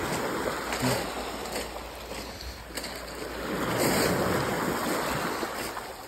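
Small sea waves breaking and washing up a pebble beach, the surge building to its loudest about four seconds in and then fading.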